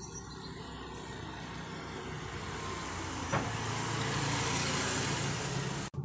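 Motor scooter engine approaching and passing close by, getting steadily louder, loudest about four to five seconds in.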